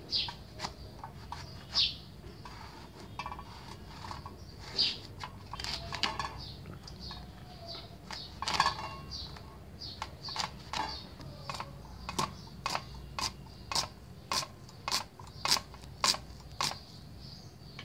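Brinjal (eggplant) being cut on a curved boti blade: a series of short, sharp cutting strokes, about one or two a second, coming quicker and more regularly in the second half.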